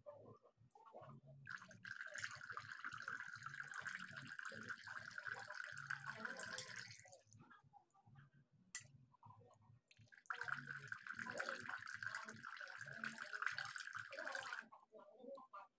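Water from a small pump-fed cement tabletop fountain trickling and splashing into its basin, in two steady stretches that each start and stop abruptly, with a single sharp click in the gap between them.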